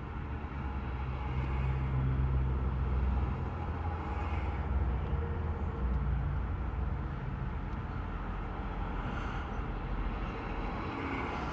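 Road and engine noise inside a moving car: a steady low rumble that swells a second or so in and eases off slightly after about seven seconds.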